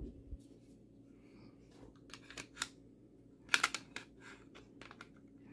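Light clicks and clacks of a Ruger American Pistol's slide and frame being handled and fitted together. The loudest is a quick cluster of sharp clicks about three and a half seconds in, with fainter ticks before and after.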